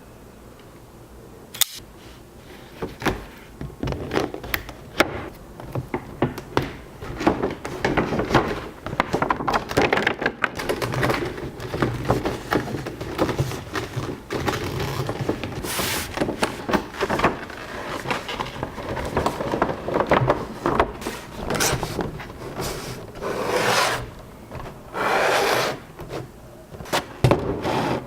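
Hands unboxing a figure's packaging: irregular taps, knocks and crinkling of cardboard and plastic, with two longer rasping sounds, each about a second, near the end.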